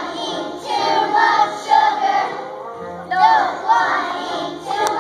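A class of young children singing together in unison, with backing music underneath. A single sharp click comes near the end.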